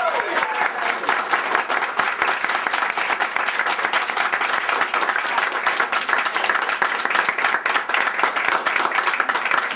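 A small crowd clapping steadily, a dense patter of many hands.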